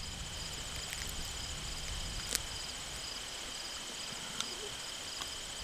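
Crickets or similar insects chirping steadily in the background, a high pulsing trill over a low rumble, with a couple of sharp clicks partway through.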